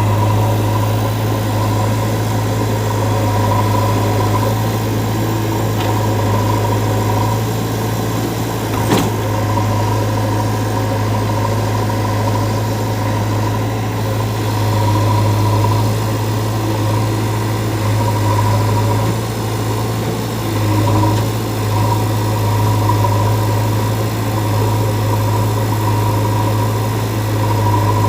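Heavy diesel engine running steadily at a constant speed, with a short sharp click about nine seconds in.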